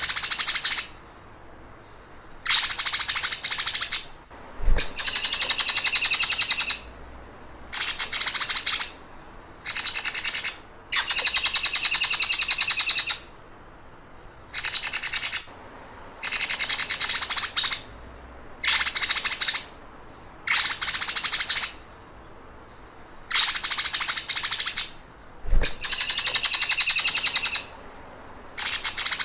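A songbird's 'sewing machine' (mesin jahit) song: bursts of very fast, high-pitched repeated notes like a sewing machine's stitching, each lasting one to two seconds, about a dozen in a row with short pauses between them.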